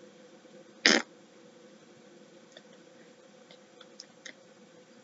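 Quiet room tone with a faint steady hum, broken by one short sharp hiss about a second in and a few faint ticks near the end.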